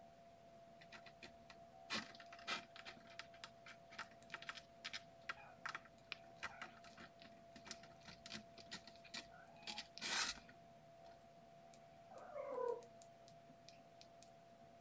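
Cat claws and paws clicking and scratching irregularly as a kitten scrabbles at the pen wall, with a louder scrape about ten seconds in. A short meow follows near the end.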